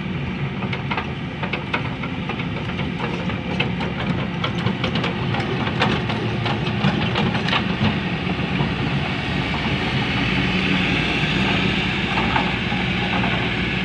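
Heavy diesel construction machinery running steadily, with a spell of metallic clanks and rattles through the first half, then a smoother, hissier running sound.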